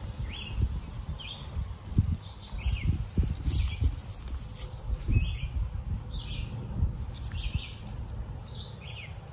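A songbird calling over and over in short, high, falling notes, about one a second. Underneath, dry leaves and twigs rustle as they are gathered and dropped into a metal fire box, over a low rumble.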